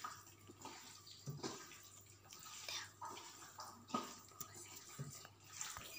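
Hands squishing and mixing paste-coated food pieces in a steel bowl: faint, irregular wet squelches.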